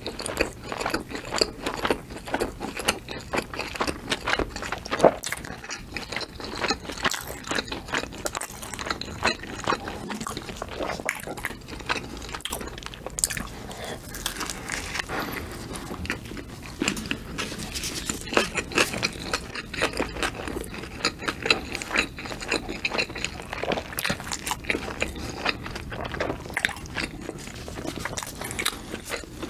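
Close-miked eating of a cheeseburger: biting and chewing mouth sounds, a steady run of small irregular clicks.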